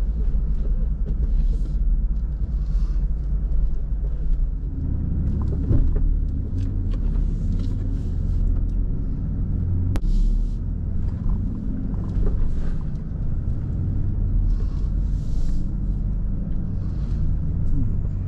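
Stock Jeep Rubicon running slowly on an off-road trail, a steady low rumble that grows louder about four and a half seconds in, with scattered knocks and one sharp clack about ten seconds in.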